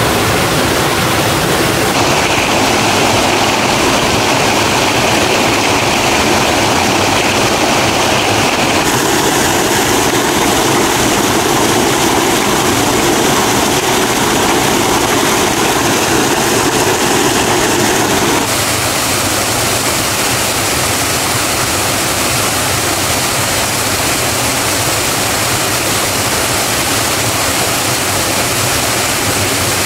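Steady loud rush of falling and flowing water at a mountain stream waterfall. Its tone changes abruptly three times.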